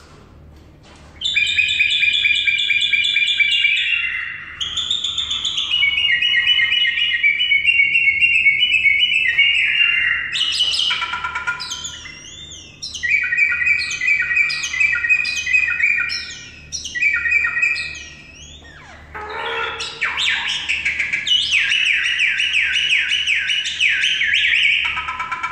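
Common myna calling: long runs of rapid, repeated chattering and trilling notes that start about a second in, with two short breaks along the way.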